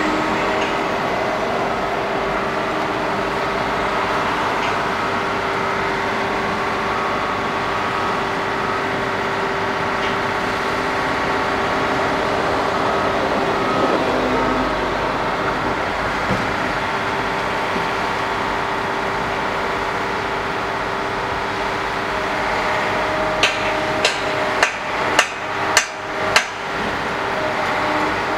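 Heavy diesel engines of a Liebherr HS 875 crawler crane and a wheel loader running steadily while the crane's diaphragm-wall grab works down into the loader's steel bucket. Near the end come about six sharp metallic clanks in quick succession, the grab knocking against the bucket.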